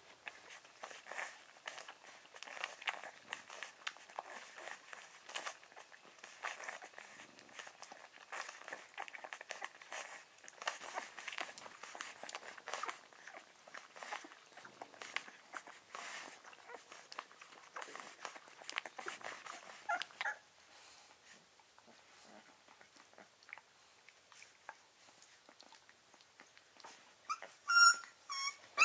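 Old English Bulldog puppies squirming and mouthing at each other, with soft squeaks and grunts over small scuffling clicks. It goes quieter for several seconds, then a few sharp, high yips come near the end.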